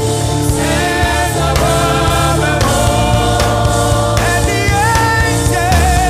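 Gospel praise song: a choir singing with a band, steady bass and beat underneath.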